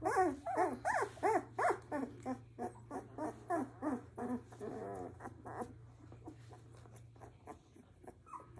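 Seventeen-day-old Labrador retriever puppy crying: a quick run of short, high whines that rise and fall, about three a second, tapering off after about five seconds.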